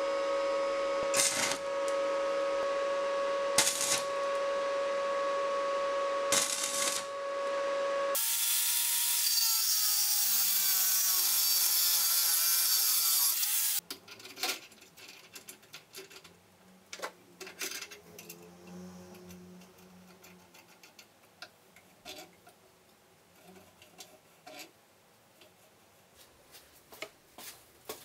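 A power tool running with a steady whine for about eight seconds, then about five seconds of stick-welding arc crackle on steel. After that come faint clicks and knocks as the metal jig is handled and fitted on the lathe.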